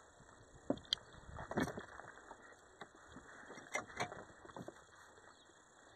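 Faint, scattered knocks, clicks and rustles of someone moving and handling gear beside a parked ATV on rubble-strewn ground, with sharper clicks about a second in and again near four seconds.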